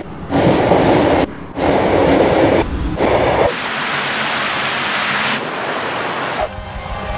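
Metro train running on rails, its noise cut into short stretches by sudden brief gaps, giving way about three and a half seconds in to a steadier, higher hiss.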